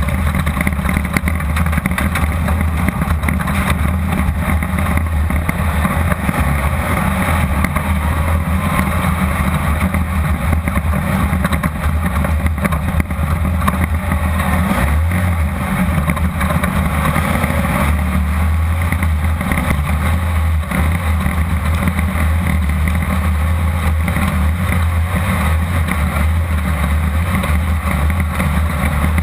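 Class 2-1600 desert race buggy at speed, heard from inside the car: its 1600cc air-cooled Volkswagen engine runs hard at a fairly steady speed, with constant rattling and knocks from the chassis.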